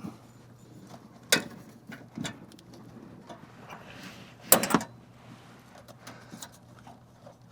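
A few sharp clicks and light knocks of small parts and tools being handled, the loudest pair about halfway through, over a faint steady hum.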